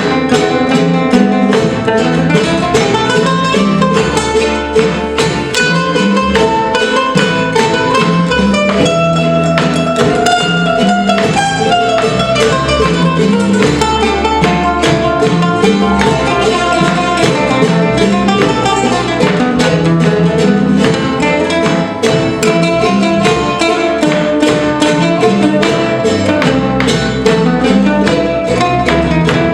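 Son jarocho ensemble playing live: jaranas strummed in a fast, even rhythm under a plucked requinto melody, with a bass line beneath.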